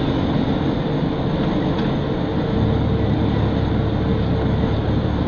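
Steady engine drone and road noise heard inside a lorry's cab while it drives along, the low hum growing stronger about halfway through.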